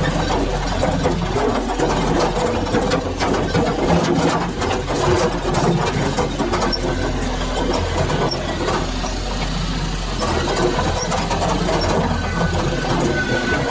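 Yanmar B22 mini excavator's diesel engine running steadily while digging, with many short knocks and clanks from the bucket and arm working in sand, all played back at double speed.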